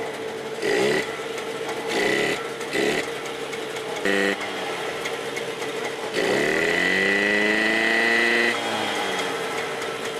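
Assembly-line power tool run in short bursts, each spinning up in pitch, then one longer run about six seconds in that winds up, holds steady and cuts off suddenly, over steady factory machinery hum.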